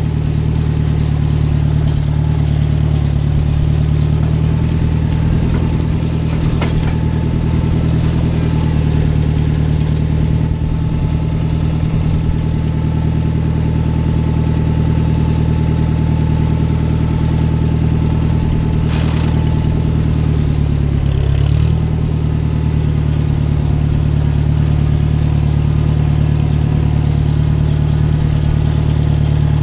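Small farm tractor's engine running steadily, with a brief dip in pitch about 21 seconds in before it settles back.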